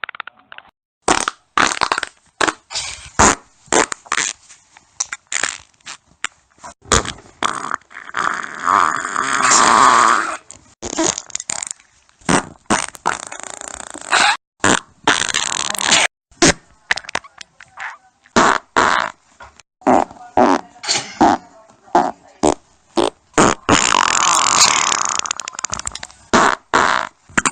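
Human farts recorded on a phone, played one after another: many short, separate sputtering bursts, with longer drawn-out ones about a third of the way in and again near the end.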